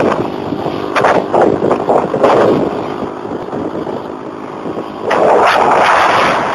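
Wind buffeting the microphone on a moving motorcycle, with the engine running underneath. The rushing noise eases off in the middle and surges back about five seconds in.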